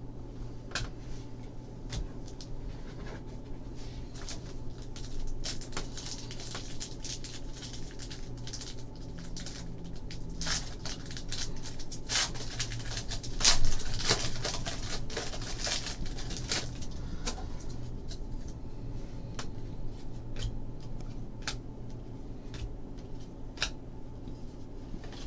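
Trading cards being handled: card stock sliding and rustling, with scattered light clicks and taps and a louder rustle about thirteen seconds in.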